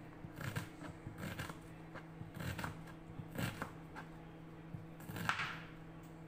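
Kitchen knife chopping an onion on a cutting board: irregular sharp strikes, often in quick pairs about once a second, the loudest about five seconds in.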